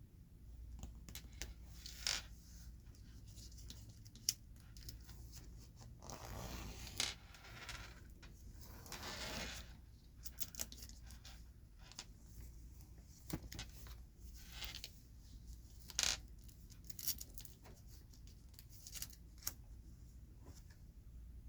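Jumbo Pokémon cards being handled: scattered light taps and clicks, with two longer scratchy sliding rustles a few seconds into the sound.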